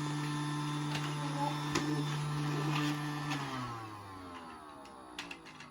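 Toy Hetty vacuum cleaner's small electric motor running with a steady hum. About three seconds in its pitch falls and it fades as the motor winds down.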